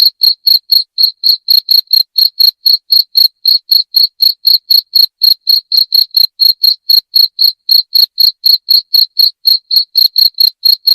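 Cricket chirping in a steady, even rhythm of about four high-pitched chirps a second.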